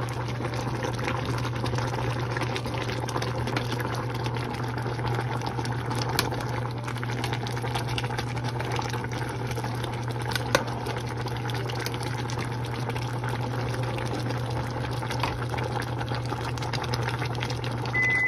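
Sinigang shrimp broth boiling in a pan, bubbling steadily, with a few sharp clicks of a metal ladle against the pan over a steady low hum. A short beep right at the end.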